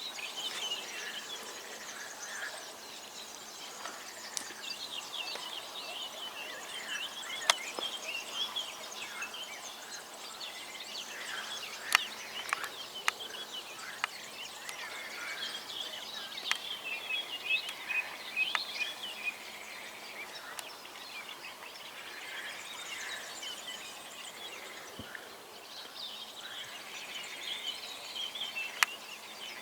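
Mallard ducklings peeping: a continuous chatter of quick high-pitched peeps. A few sharp clicks stand out here and there.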